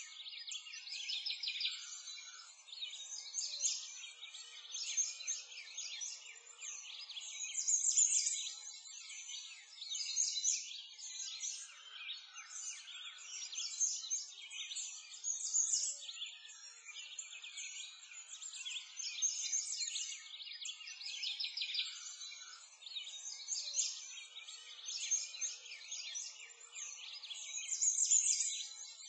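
A dense chorus of songbirds chirping and singing without a break, all high-pitched, swelling and fading every couple of seconds.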